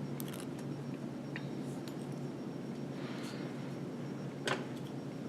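Quiet room tone with a steady low hum, a few faint ticks and one small click about four and a half seconds in.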